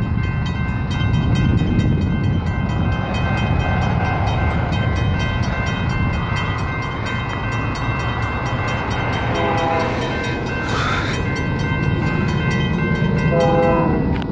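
Railroad grade-crossing bell ringing with rapid, even strikes as the crossing warning activates. About two-thirds of the way through and again near the end, an approaching locomotive sounds its multi-chime K3L air horn in two short blasts, still some way off.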